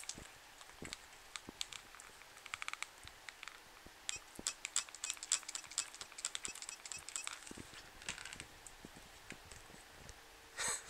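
A cat licking and smacking its lips after spray-bottle squirts: many quick wet clicks in bursts, with a short spray-bottle squirt hissing near the end.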